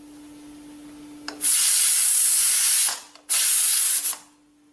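Steam hissing out of an aluminium pressure cooker's vent as its whistle weight is lifted off: a faint steady hiss, then two loud blasts of about a second each with a short break between. The cooker holds only water, at pressure, being used as a steamer.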